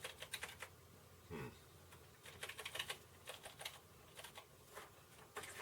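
Computer keyboard keys being pressed, faint irregular clicks in quick clusters, as keys are tapped to move through the BIOS setup menus.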